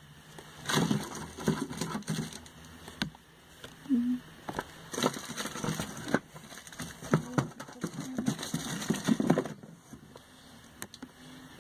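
Handling noise of plastic squeeze tubes of facial mask being picked up and set down in a row: irregular rustling and crackling with light taps and clicks.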